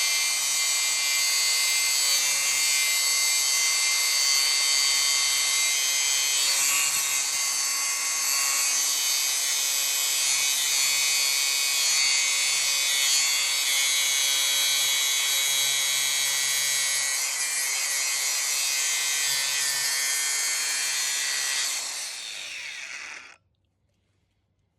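DeWalt 60V brushless angle grinder with a thin cut-off wheel cutting through a steel bolt: a loud, steady, high-pitched grinding whine. About 22 seconds in the trigger is released and the motor winds down in pitch, stopping abruptly about a second later.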